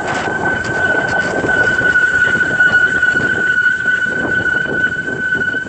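E-bike brakes squealing under light braking: one steady high-pitched squeal. The brakes are built for hard use and squeak when used only lightly. Beneath it runs the rumble of tyres and wind from riding through snow.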